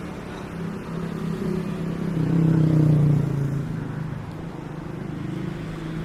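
A motor vehicle's engine passing close by, growing louder to a peak about three seconds in and then fading, over a steady engine hum.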